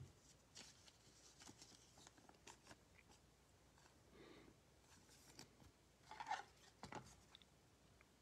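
Faint rustling and small clicks of a glossy trading card and a thin plastic card sleeve being handled, a little louder a few seconds before the end as the card is worked into the sleeve.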